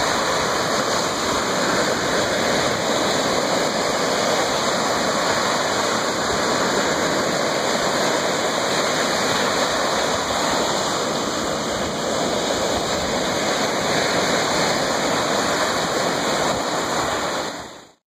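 Steady rush of Lake Superior surf washing on the shore, with no distinct breaks between waves. It cuts off suddenly near the end.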